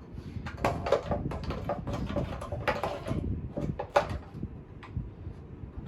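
Irregular clicks, knocks and rattles of Kirby Classic III vacuum cleaner parts being handled and fitted together.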